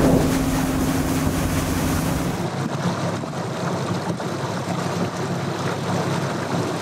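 Bass boat under way: the outboard motor runs steadily under a loud rush of water and wind. About two seconds in the sound changes abruptly to a steadier rush with the engine fainter.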